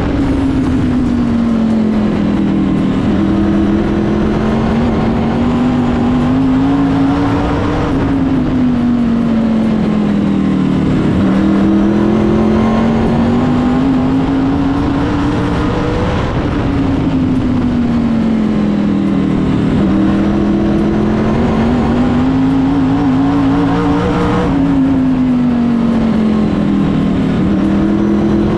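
Open-wheel modified race car's V8 engine heard from inside the cockpit while lapping a short oval. Its pitch falls and climbs again about every eight seconds as the driver lifts for each turn and accelerates down each straight.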